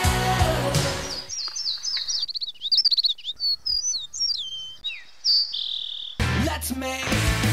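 Music breaks off about a second in, and songbirds chirp and tweet in quick short notes for about five seconds. Guitar music cuts back in abruptly near the end.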